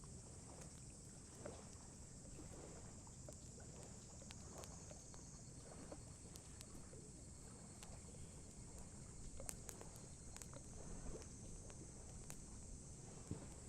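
Wood campfire crackling, with sporadic sharp pops and a few louder snaps in the latter half, over a low steady rumble and a faint high hiss.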